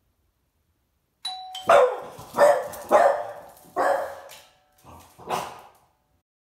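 A two-tone doorbell chime sounds about a second in, and a French bulldog answers it with about six sharp barks at the front door, the last two softer.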